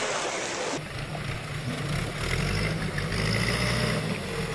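Rushing stream water for about the first second, then a sudden cut to a motorcycle engine running at low revs with an uneven, low rumble.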